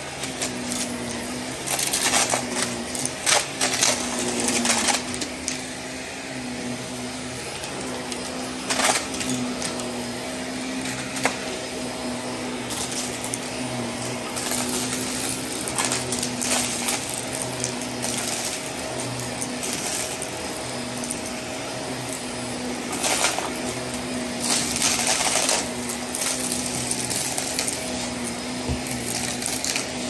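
Shark upright vacuum cleaner running steadily over carpet. Repeated short bursts of rattling as beads, glitter and small wooden letter tiles are sucked up into it, loudest about two seconds in, around four seconds and between 23 and 26 seconds.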